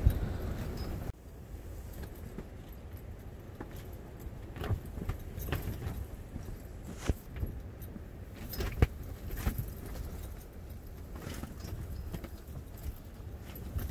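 Canvas tent buffeted by strong wind: a low rumble of wind with irregular sharp snaps and rattles from the fabric and its fittings.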